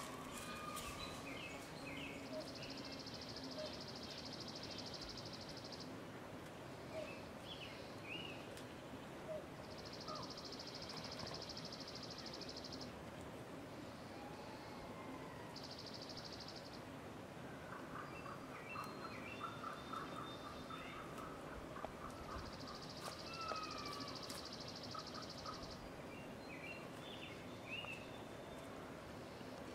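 Quiet woodland ambience: scattered bird chirps and whistles over a faint hiss, with a high buzzing trill that comes in four times, each lasting one to three seconds.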